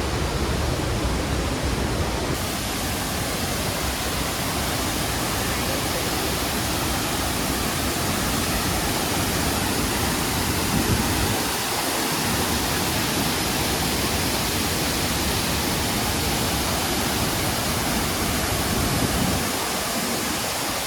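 Steady rushing roar of a large waterfall, Tirathgarh Falls, with some uneven rumble in the low end.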